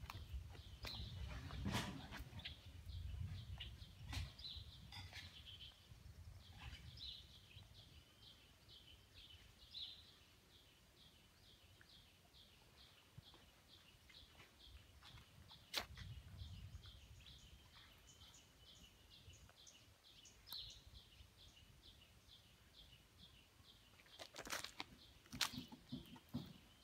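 Faint, evenly repeated high chirps from a small bird, about three a second, running on for some twenty seconds. There are a few soft knocks and rustles near the start and near the end.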